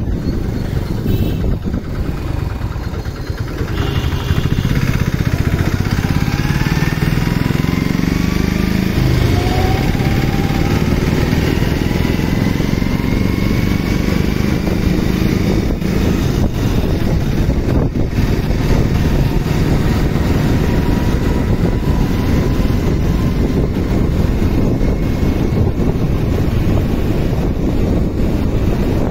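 Motorcycle engine running under way, its pitch rising several times in the first third as the bike speeds up, over a steady rush of wind on the microphone.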